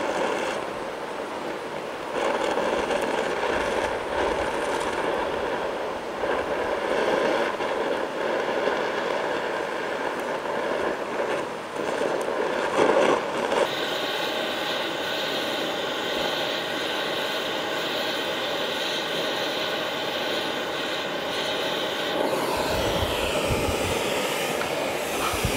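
Gas torch with a rosebud heating tip burning steadily while brazing a broken cast lever, a continuous rushing hiss with a faint steady whistle in it. The hiss turns brighter about halfway through.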